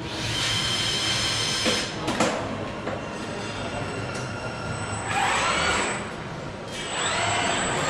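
Industrial robot arm working in an assembly cell as it sets down an electric-drivetrain housing: a hiss with a few steady tones, two clunks about two seconds in, then two whines that rise and fall in pitch as its drives speed up and slow down.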